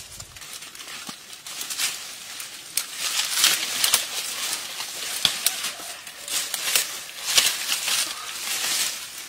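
Dry leaves and twigs rustling and crackling in irregular bursts as someone moves through dry undergrowth and leaf litter.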